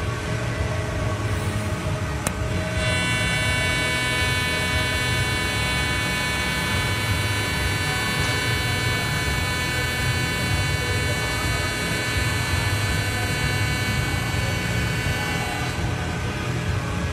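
Miller Dynasty 280DX TIG arc pulsing at 250 pulses per second: a steady high-pitched buzz that starts just after a click about two and a half seconds in and stops a couple of seconds before the end. A steady low hum runs underneath.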